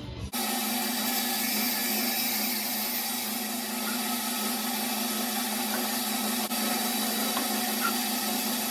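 Electric power tool running steadily at constant speed, a continuous even noise with a faint steady whine, starting abruptly just after the start.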